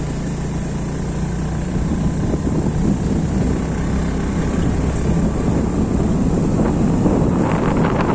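Motor vehicle engine running steadily while riding, with rumbling road and wind noise.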